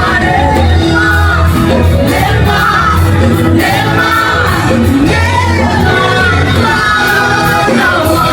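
Music with singing: a sung melody over a steady, pulsing bass line.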